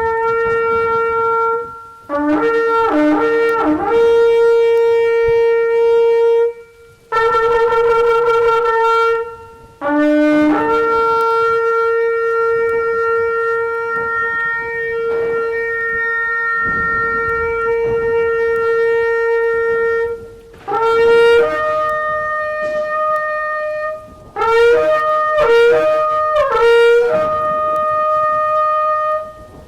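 A shofar being blown in a series of calls: held blasts, including one very long blast of about ten seconds in the middle, alternating with quick broken notes that jump up and down in pitch. The later calls sit on a higher note.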